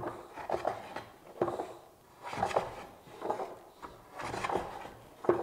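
Low-angle block plane taking repeated strokes across the end grain of a tiger maple board, about one stroke a second.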